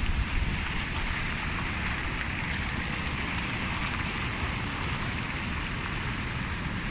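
Strong wind buffeting the microphone, a low rumble over a steady rushing noise.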